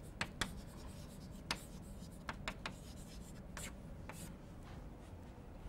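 Chalk writing on a blackboard: a faint string of short sharp taps and brief scratchy strokes as the chalk is pressed and drawn across the board.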